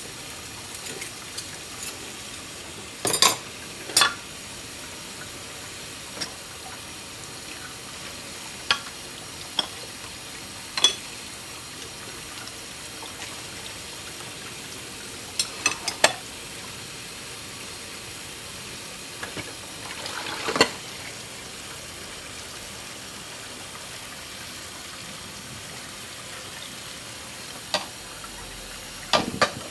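Dishes being washed by hand in a sink: a steady hiss of running water, with sharp clinks and knocks of plates and cutlery every few seconds.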